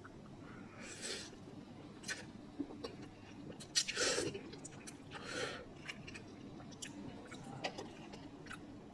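A person eating instant cup noodles: chewing with small wet mouth clicks, and three short airy sounds from the mouth about one, four and five seconds in.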